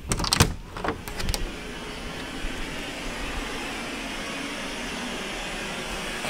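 A lever door handle and latch clicking a few times as a door is opened, then a steady even hiss.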